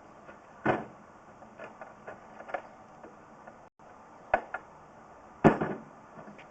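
Equipment being handled: a few sharp knocks and clunks, the loudest near the start and about five and a half seconds in, with lighter ticks between them.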